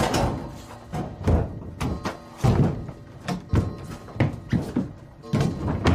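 A run of heavy thuds, about one a second, as a person's feet land on and push off the wooden floor, walls and a leather armchair.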